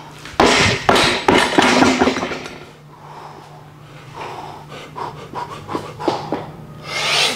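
A strongman's heavy, forceful breathing and straining between reps of a heavy axle press. It is loudest in the first two seconds, then quieter, with a sharp breath near the end.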